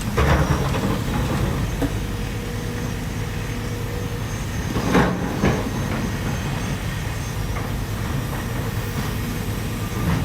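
Hydraulic excavator's diesel engine running steadily under work, with brief louder rushes of noise near the start and twice about five seconds in.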